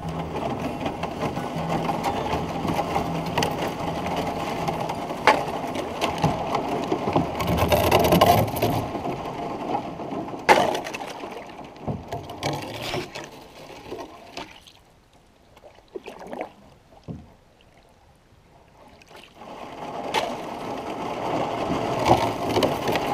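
Canoe paddling: paddle strokes swishing and splashing in the water, with a few sharp knocks of the paddle against the canoe's hull. It goes quieter for a few seconds past the middle, then picks up again.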